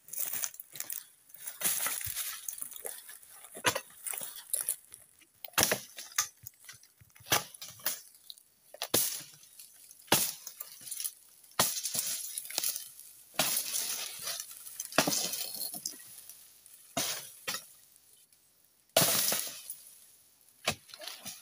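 A long-handled pruning blade chopping into the dry frond bases on an oil palm trunk, one sharp strike every second or two, with dry rustling and crackling between some of the strikes.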